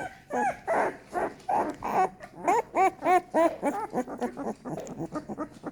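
Young American Staffordshire terrier puppy crying in a rapid string of short, squeaky whines, each rising and falling in pitch, about three a second. The cries are loudest in the middle and grow fainter toward the end.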